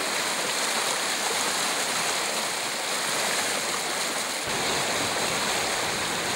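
River in flood, its fast floodwater rushing in a steady, loud noise of churning water. About four and a half seconds in, a deeper rumble joins it.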